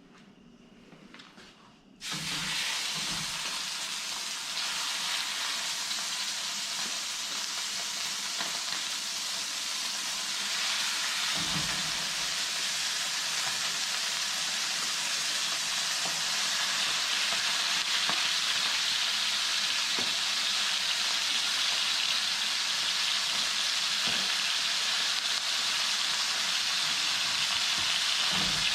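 Venison roast searing in hot oil: a loud sizzle starts suddenly about two seconds in as the meat hits the pan and keeps going, growing a little louder, with a few faint low knocks of the meat or pan being handled.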